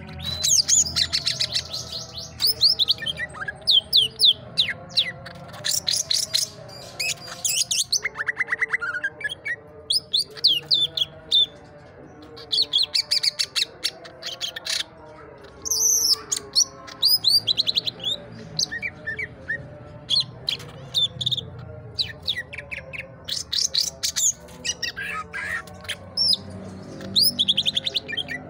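Male green leafbird (cucak ijo) singing in a cage: a fast, varied run of chirps, whistled sweeps and rapid trills, coming in bursts with short pauses between them.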